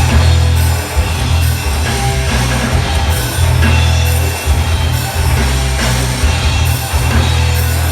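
Live rock band playing loudly: electric guitar, a heavy bass line and a drum kit.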